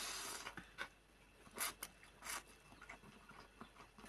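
A person slurping instant noodles into the mouth, a longer slurp at the start and two short ones later, then chewing with small wet mouth clicks.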